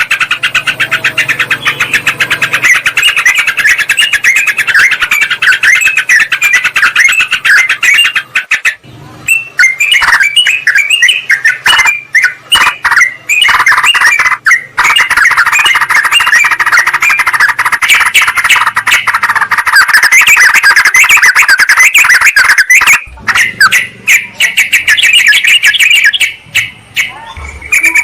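Yellow-vented bulbuls (trucukan) in a bird-lure recording: loud, dense chattering of rapid, overlapping call notes, broken by a few short pauses.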